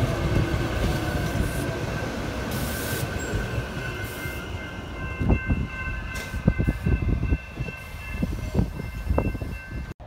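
Silverliner V electric commuter train rolling past close by with a steady running rumble. From about four seconds in, several steady high whines join it, and in the second half the wheels give a string of irregular knocks.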